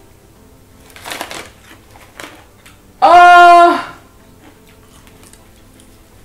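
A woman's pained reaction to a burning-hot chili snack in her mouth: a sharp breath about a second in, then a loud cry held on one pitch for just under a second.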